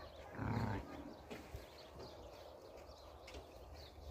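A single low call from the penned goats and sheep, about half a second in, followed by faint farmyard sounds.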